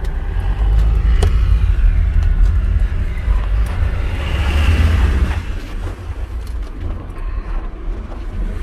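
Low road and engine rumble of a moving car heard from inside the cabin, heavier for the first five seconds and easing after. A rushing hiss swells and fades about four to five seconds in, and a sharp click comes about a second in.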